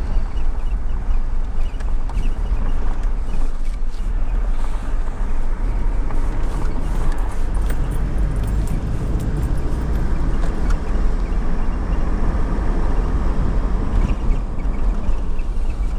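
Vehicle driving, with steady engine and road noise and a heavy low rumble, and a few faint ticks about halfway through.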